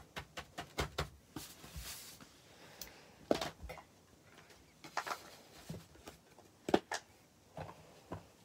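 Silicone fidget toys being picked up and moved about on a sheet of paper: a string of irregular taps, clicks and knocks, with a short rustle about one and a half seconds in.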